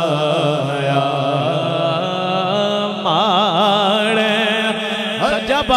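A man's voice chanting long, ornamented held notes with a wide vibrato, in the melodic style of Quran recitation or naat, with quick sliding turns near the end.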